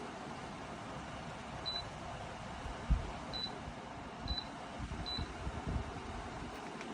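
Dreo Cruiser Pro tower fan running with a steady rush of air, and four short high beeps from the fan as settings are changed. There are a few dull low thumps among the beeps.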